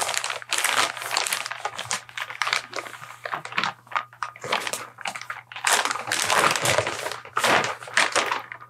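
Thick-gauge plastic bag crinkling and rustling in irregular bursts as it is pulled and worked off a loudspeaker.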